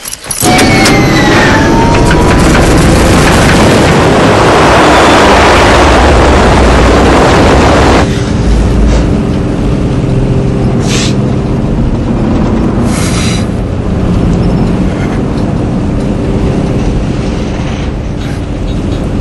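Light propeller aircraft engine running loud, a dense noise with a whine that shifts in pitch. About eight seconds in it changes abruptly to the steadier, lower engine drone heard inside the cabin, with a few sharp clicks.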